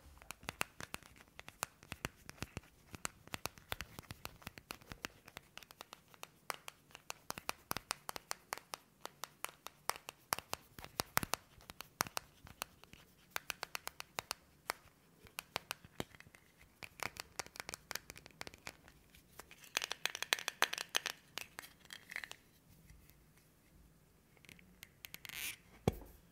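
Fingernails tapping and scratching on a small metal Vaseline Lip Therapy tin held close to the microphone: a quick, uneven run of small clicks, with a denser scratchy stretch about twenty seconds in and a louder burst near the end.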